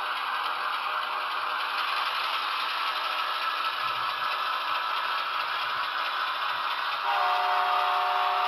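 HO-scale Athearn Genesis ES44AC model locomotive running under DCC, its Soundtraxx Tsunami sound decoder playing the GE diesel engine through a small speaker, with the steady rattle of the freight cars rolling over the track. About seven seconds in, the locomotive's multi-note horn chord starts and holds.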